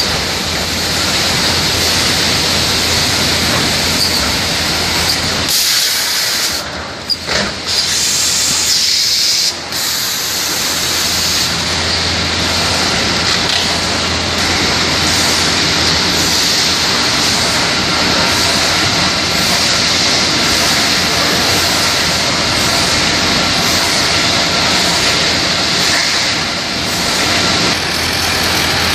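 Steady, loud din of toilet-paper and kitchen-towel converting machinery running: a constant high hiss over a low hum, with a few brief dips about six to ten seconds in.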